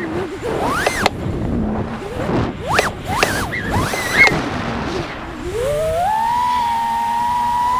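Five-inch FPV quadcopter's brushless motors (T-motor F60 Pro V, 2020kv) whining under rapid throttle changes, the pitch jumping up and down in quick stabs for about four seconds, then settling into a steady whine that climbs near the end as the throttle is pushed up.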